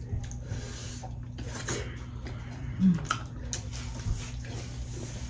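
Close-up eating sounds: wet chewing and lip smacks as dhido is dipped in soup and eaten by hand, with a short hummed voice sound about three seconds in. A low steady hum sits under it.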